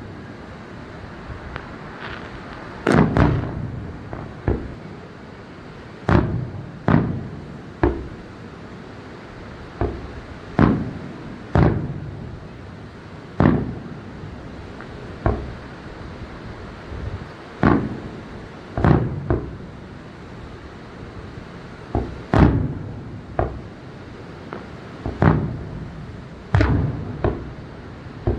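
Aerial fireworks going off in an irregular series of booms, roughly one every second or two, each trailing off in a short rumbling echo.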